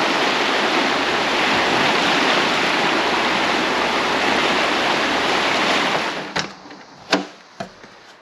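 River water rushing, a loud steady rush that cuts off about six seconds in, followed by a few short knocks.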